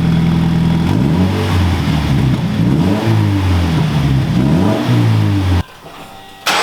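Toyota 86's 2.0-litre flat-four boxer engine, breathing through an X-Force catback exhaust with the muffler and resonator deleted, idling and then revved in about four quick blips. The sound drops away suddenly near the end.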